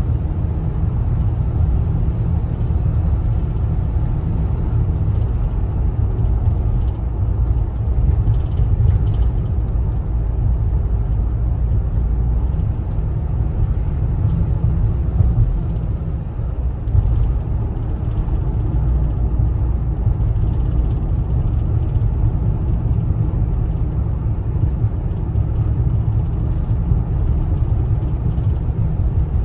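Cabin noise of a 2019 Ford Transit van with a 3.5-litre EcoBoost V6 at a steady cruise: a constant low rumble of tyres, road and engine heard from inside.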